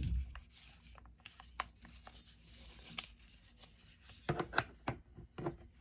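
Magnetic puzzle cube being reworked by hand into a new shape: scattered small clicks as its pieces are turned and snap together, with a quick cluster of clicks about four seconds in.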